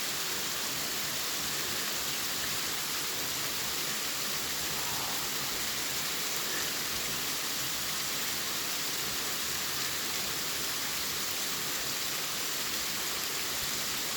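Big waterfall pouring down a rock wall, heard from about five feet away: a steady, even rushing of water.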